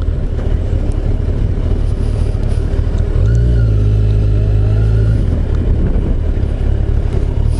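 Kawasaki Ninja 1000SX's inline-four engine running as the motorcycle is ridden at low speed, over a constant low rumble. From about three seconds in, the engine note holds steadier and a little louder for about two seconds.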